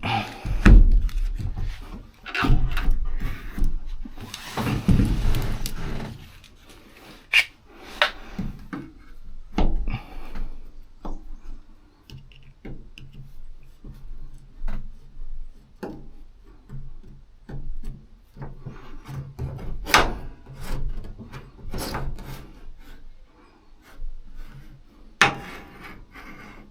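Hands-on work fitting sound-insulation pieces inside a truck cab: irregular rubbing and scraping with scattered sharp knocks and clicks, and a longer stretch of rubbing about four to six seconds in.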